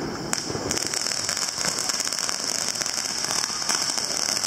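Ground fountain firework crackling: a dense, steady hiss of fine crackles that starts about a second in, with a single sharp pop just before it.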